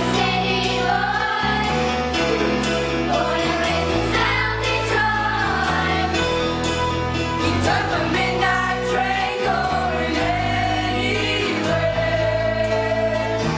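A choir of young singers singing to instrumental accompaniment, the chords underneath changing every second or two.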